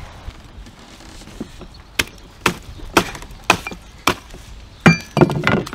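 A blade chopping into a whole smoked beef carcass: about half a dozen sharp blows, roughly two a second, starting about two seconds in, with the last few running together near the end.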